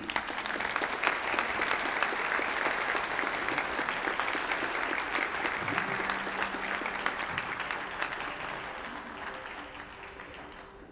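Banquet audience applauding, the applause dying away over the last few seconds.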